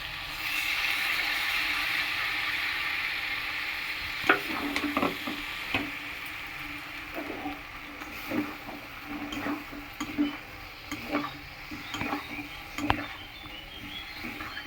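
Curry frying and sizzling in a pan, the sizzle jumping louder about half a second in. From about four seconds on, a spoon scrapes and knocks against the pan roughly once a second as the curry is stirred.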